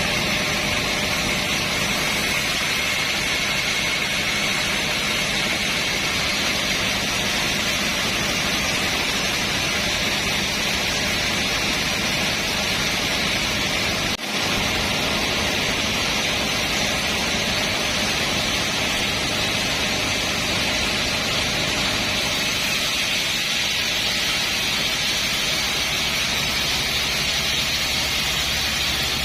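Sawmill machinery running with a loud, steady noise, broken only by a brief dip about halfway through.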